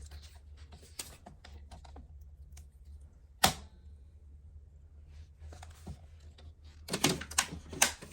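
Paper and craft tools being handled on a desk: scattered light clicks and taps, one sharp click about three and a half seconds in, and a quick run of louder taps near the end.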